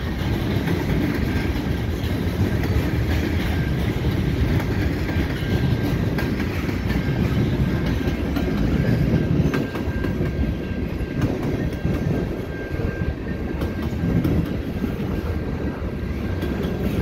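Freight train cars rolling past at close range: a steady, loud rumble of steel wheels on the rails with scattered clacks.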